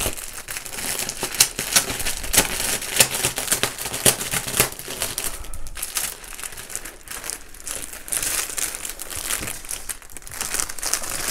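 Clear plastic wrap crinkling and crackling in irregular bursts as it is pulled open by hand from a framed canvas kit.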